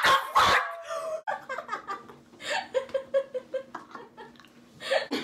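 Several young women laughing together: loudest at the start, then quieter rhythmic ha-ha laughter, with a louder burst near the end.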